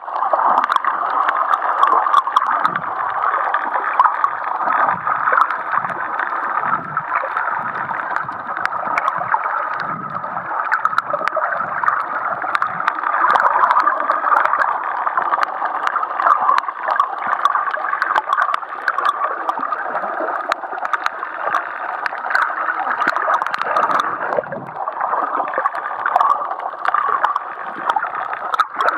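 Underwater reef sound picked up by a submerged camera: a muffled, steady water rush with gurgling, scattered sharp crackling clicks, and irregular low thumps.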